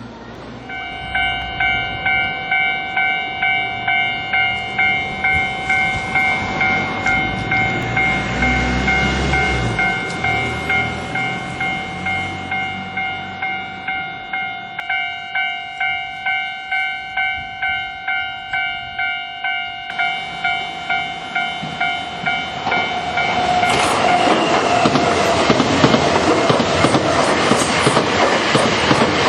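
Japanese level-crossing warning bell ringing its steady repeated electronic ding-ding while the crossing is closed. About 23 seconds in, an electric train runs over the crossing on the Nankai Koya Line, and its wheel and running noise takes over.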